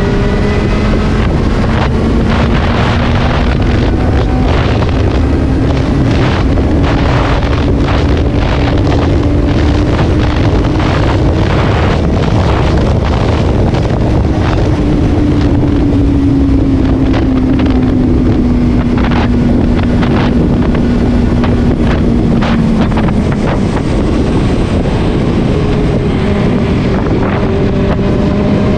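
A Benelli TNT 600i's inline-four engine running under way, buried in heavy wind buffeting on the microphone. Its note climbs slowly, jumps up about halfway through, then sinks gradually before rising again near the end.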